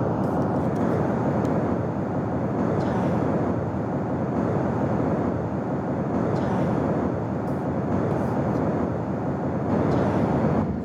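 Live-coded ocean-wave sound effect: a steady low rushing noise like surf, swelling slightly every few seconds.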